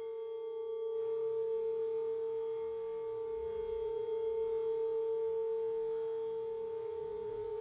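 One sustained ringing tone held at a single pitch, like a struck singing bowl or a tuning fork. Its higher overtones fade away about a second in, and the tone pulses slightly near the end.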